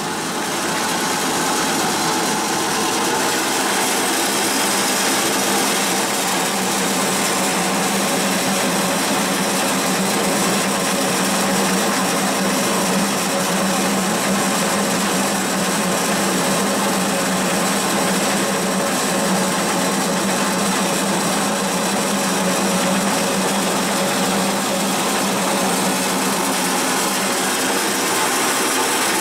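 Remet GX100 roller grain crusher running under load, its electric motor and rollers crushing whole grain. It makes a steady low hum under a dense, even hiss of grain being crushed.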